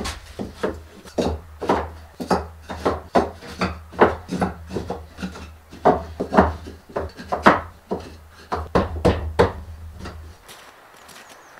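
Wooden boards knocking and clattering against each other as they are handled, a couple of sharp knocks a second, stopping near the end.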